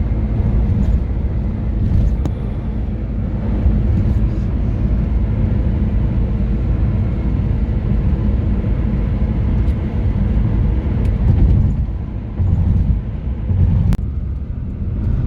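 Steady low rumble of a car driving on a highway, heard from inside the cabin: engine and tyre road noise, with a few faint clicks.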